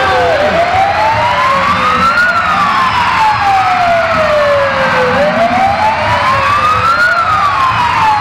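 Sirens of several police motorcycles wailing at once. Slow rising-and-falling wails overlap out of step over a low rumble.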